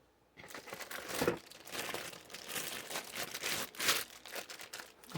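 Plastic bag crinkling as a cordless drill wrapped in it is handled and lifted out of its packaging, with irregular crackles throughout after about half a second in.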